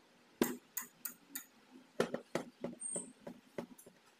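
Light metal clicks and taps from a valve spring compressor and the valve parts as valves are fitted into a Hero Splendor Plus cylinder head. About ten sharp clicks come at irregular spacing.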